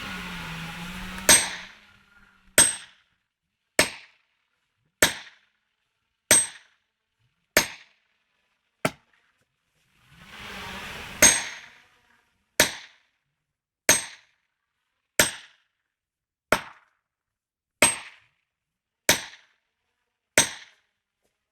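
A steady series of hard blows from a striking tool, about one every second and a quarter, some sixteen in all, each sharp and ringing briefly.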